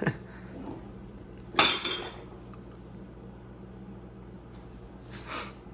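Small bells on a cat wand toy jingling as the toy is shaken, once about a second and a half in and again, more softly, near the end.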